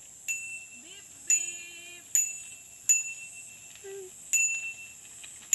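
Bicycle bell rung again and again, about six bright metallic dings, roughly one a second, each fading quickly.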